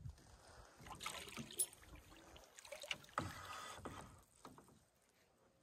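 Canoe being paddled: faint swishes of the paddle through the water and a few light knocks during the first few seconds, then near quiet.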